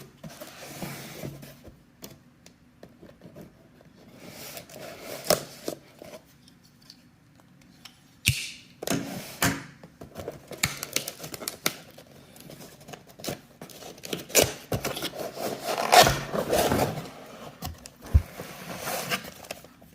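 Cardboard box being opened and its packaging handled: irregular rustling and scraping, with scattered clicks and knocks as parts are lifted out.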